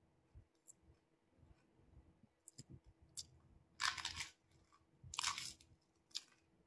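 Crisp fuchka (pani puri) shells crunching as they are bitten and chewed, with two stronger crunches a little past the middle and a few fainter clicks around them.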